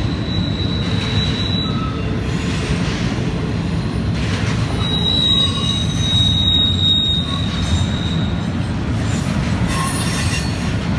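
Double-stack container train rolling past with a steady low rumble of the cars. A high, thin wheel squeal rises over it twice: briefly near the start and for several seconds in the middle.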